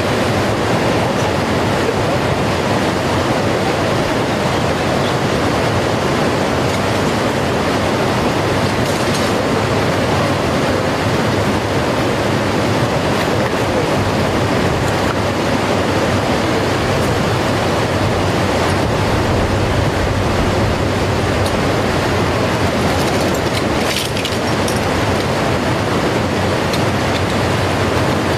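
Steady rushing of flowing river water, loud and unbroken, with a faint low hum beneath it.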